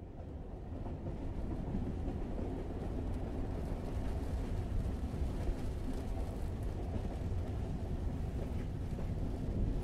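Train ambience: a steady low rumble of a moving train, swelling in over the first second and then running on evenly.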